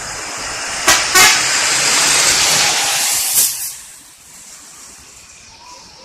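Po. Haryanto bus giving two short horn toots about a second in, over the rising rush of the bus passing close by, which drops away after about three and a half seconds.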